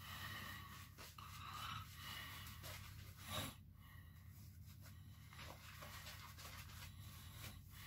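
Faint, irregular swishing of a boar-bristle shaving brush (Omega 829) working shaving-soap lather over a stubbled face, with one slightly louder rustle about three and a half seconds in.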